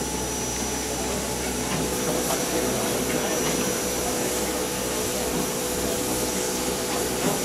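Steady hissing rush from German class 01 steam locomotive 01 202 standing at the platform while its tender is filled with water by hose. A steady low tone joins about two seconds in.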